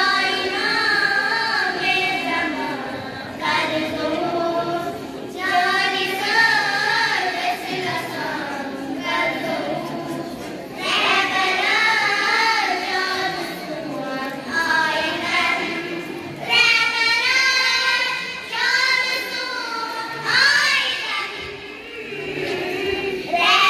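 A group of girls singing a Kashmiri manqabat (devotional song) together into microphones, in sung phrases with short breaks between them.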